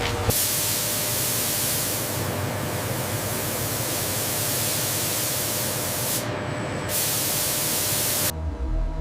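A loud, steady hiss like a spray, with its top end briefly thinner about six seconds in. It cuts off suddenly near the end as music with deep low notes comes in.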